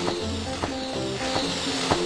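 Background music: a tune of short stepping notes over a steady beat.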